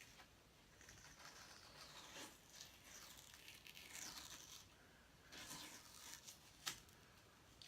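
Faint peeling and crinkling of hockey tape being pulled off the roll and wound around a hockey stick's knob, with a sharp click about two-thirds of the way through.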